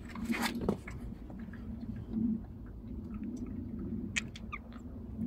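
A cat growling low and steady during a standoff, the growl swelling now and then, with a short hiss about half a second in.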